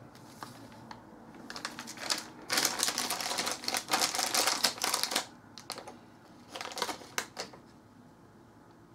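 Thin plastic bag crinkling as it is folded and rolled shut by hand: a dense crackle lasting about two and a half seconds in the middle, with shorter crinkles before and after.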